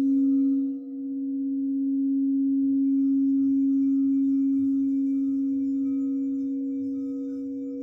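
Singing bowl sounding one sustained low ringing tone with fainter higher overtones; the tone dips briefly about a second in, swells again, then slowly fades.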